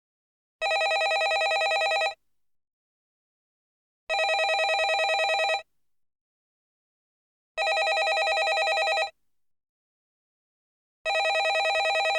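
Landline telephone ringing in a repeating pattern: a warbling ring about a second and a half long, starting roughly every three and a half seconds, with silence between rings.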